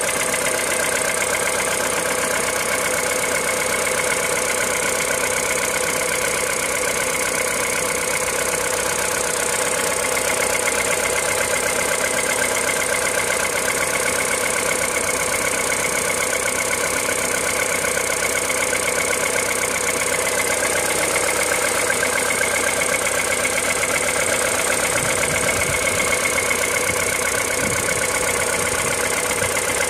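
A steady mechanical running sound, like an engine idling, holding an even pitch and level throughout.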